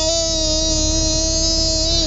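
A young girl's drawn-out whine, one long held 'uhhh' at a steady pitch, in protest over buckling her seat belt.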